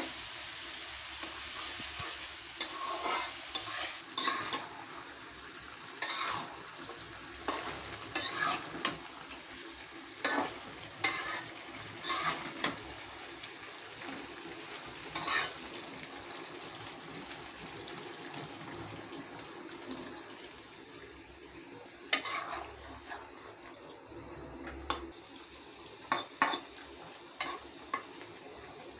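Spatula stirring and scraping in a metal pot of frying curry. Irregular sharp scrapes and knocks sound over a steady sizzle.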